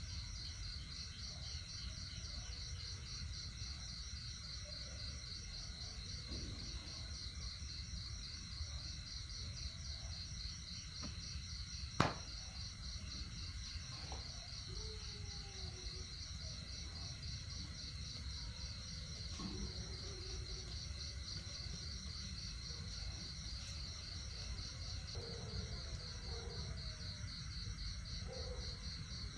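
Steady insect chorus, a high, rapidly pulsing trill that keeps on without a break, with one sharp click about twelve seconds in.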